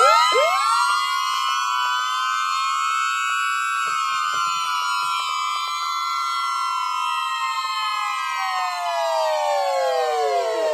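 Several Midland weather radios sounding their electronic siren alerts together. Each siren sweeps up in pitch at the start and holds a steady wail, the overlapping tones beating against each other. Near the end they wind down one after another.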